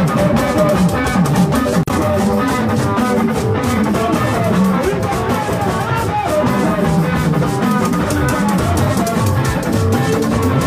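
Live band playing loud, steady music: electric guitar lines over drums, with a split-second dropout about two seconds in.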